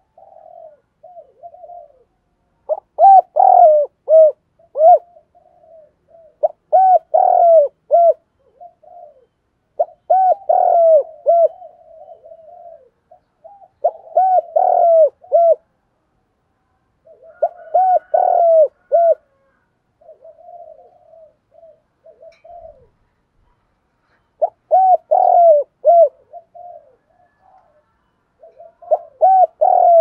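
Spotted dove cooing: loud phrases of several quick coos repeated about every three to four seconds, with fainter runs of coos between them and one longer pause about two-thirds of the way through.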